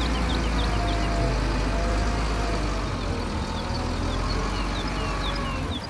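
Diesel engine of a concrete mixer truck running with a steady low rumble and a slowly wavering whine, with a quick run of short high chirps over it.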